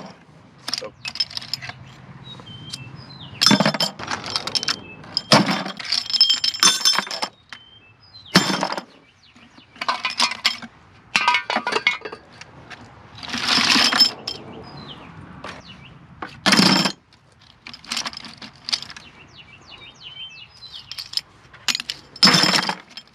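Pieces of scrap metal clinking and clattering as they are rummaged through and dropped into buckets, in irregular bursts with a few heavier clanks.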